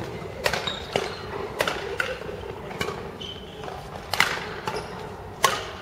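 A badminton rally: several sharp racket-on-shuttlecock hits a second or more apart, with short high squeaks of court shoes on the hall floor between them.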